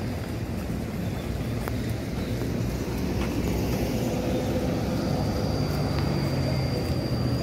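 A small pickup truck's engine running nearby, getting louder from about halfway through, over a steady low rumble.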